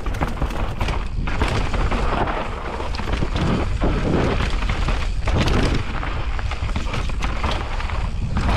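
Mountain bike riding fast down a dry dirt trail: a constant low rumble of wind buffeting the microphone, with tyres rolling over dirt and rocks and irregular knocks and rattles from the bike.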